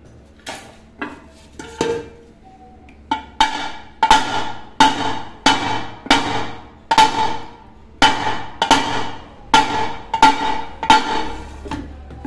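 A pressure cooker's metal rim struck again and again, about fifteen blows, each ringing briefly. The strikes are sparse for the first few seconds, then come a little under two a second. The blows are straightening the deformed rim of a swollen pressure cooker so the lid lines up and can seal again.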